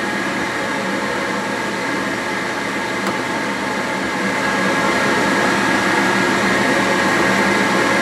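Gas furnace draft inducer motor running steadily on a call for heat, a steady whir with a faint whine, getting a little louder about halfway through. Its pressure switch hose is off, so the switch stays open and the furnace does not light.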